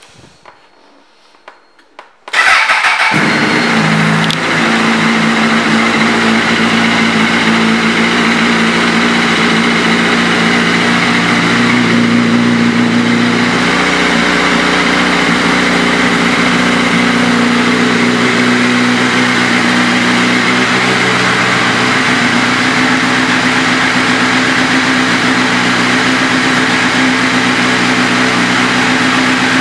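A 2005 Honda CBR1000RR's inline-four engine, fitted with an aftermarket exhaust, starts about two seconds in and settles into a steady idle.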